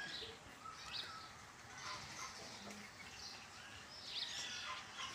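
Faint yard background with a few short, scattered bird chirps.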